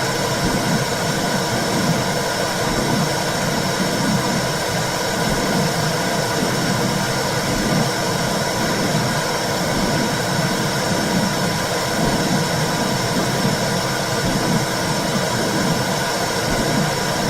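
Womb sound: a steady whooshing hiss with a slow, even pulse about once a second.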